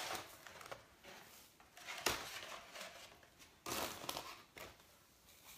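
Soft rustling and scraping as a papier-mâché house is turned and shaken over a container of loose glitter, with a light knock about two seconds in.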